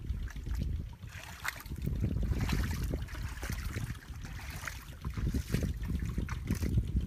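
Feet and hands splashing and squelching in shallow muddy water, in irregular bursts, over a steady low rumble.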